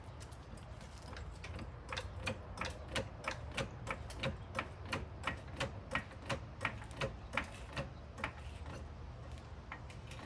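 Car jack being worked to lift the car, its mechanism clicking sharply and evenly about three times a second.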